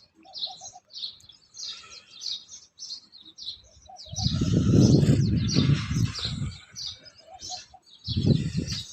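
Small birds chirping over and over. A louder low rumbling noise comes in about four seconds in and lasts a couple of seconds, then returns briefly near the end.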